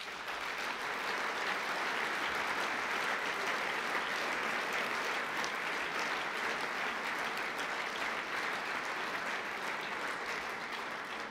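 Large audience applauding, starting all at once, holding steady and fading near the end.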